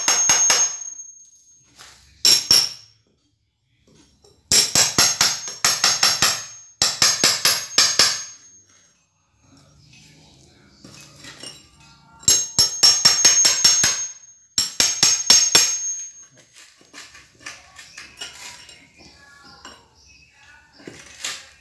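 Steel hammer striking a cold chisel in several runs of rapid blows, each strike ringing metallically, driving the chisel between a wooden formwork strip and the set concrete slab to knock it loose. Between the runs are quieter stretches of the chisel scraping and prying.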